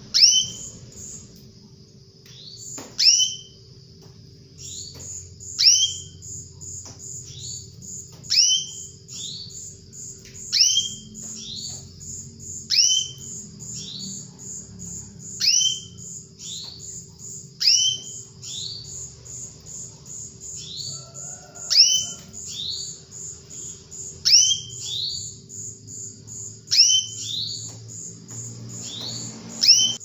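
Female domestic canary calling: loud down-slurred call notes, repeated every two to three seconds, over a fast, even run of very high notes.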